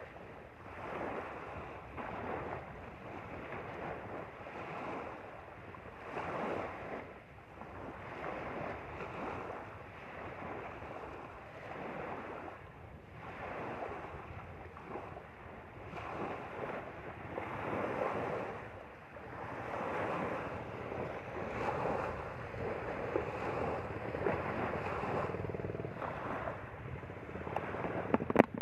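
Small lake waves lapping and washing onto a gravel shore, the wash swelling and fading every second or two. A few sharp clicks near the end.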